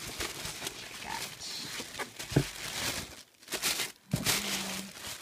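White tissue paper rustling and crinkling as a hand pushes and folds it aside inside a cardboard gift box, with a brief lull about three seconds in.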